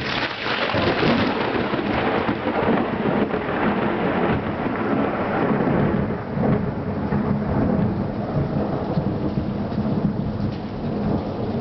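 Thunderstorm sound effect: steady heavy rain with low rolling thunder underneath, starting abruptly.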